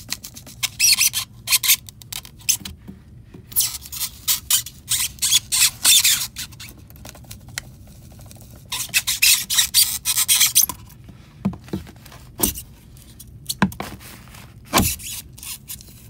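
Metal pry bar working in saw cuts in spray foam insulation, scraping and crunching against the foam in irregular bursts as it levers it loose. A few sharp knocks come toward the end.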